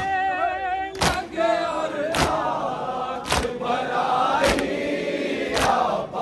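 A crowd of mourners chanting a Muharram lament (nauha) in unison behind a wavering lead voice, with a sharp beat about once a second keeping time.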